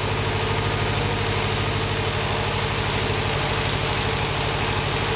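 Subaru WRX turbocharged flat-four engine idling steadily, with an even, pulsing exhaust note.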